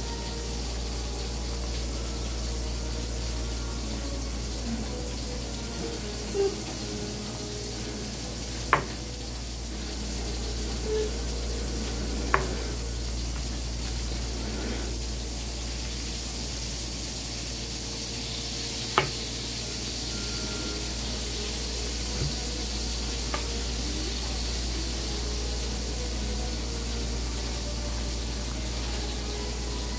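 A plastic knife tapping a cutting mat a few times, sharp single clicks a few seconds apart, as a block of cheddar cheese is sliced. Under it a steady hiss with a low hum.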